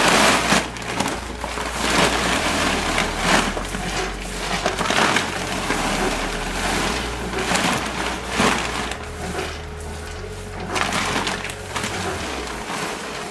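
Shelled walnut kernels poured from a sack into a steel hopper: a dry rattling and crackling that comes in repeated surges as the sack is tipped and shaken. A faint steady machine hum runs beneath.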